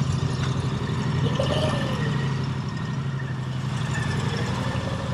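Moto Guzzi transverse V-twin motorcycle engines idling steadily.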